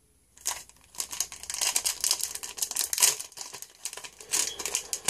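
A football-card pack's foil wrapper being torn open and crinkled by hand, a dense run of crackling that starts about half a second in.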